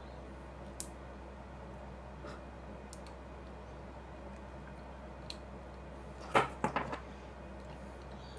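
Small objects handled on a wooden workbench during soldering work: a few faint ticks, then a quick cluster of clicks and knocks about six and a half seconds in, over a steady low hum.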